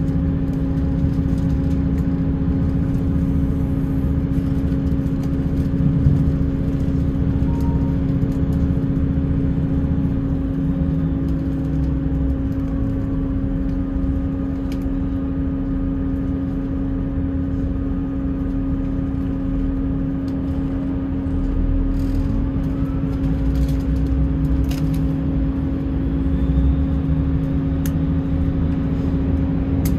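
Class 158 diesel multiple unit under way, heard from inside the carriage: the underfloor diesel engine runs at a steady drone over the rumble of the wheels on the rails, with a few faint clicks and squeals in the second half.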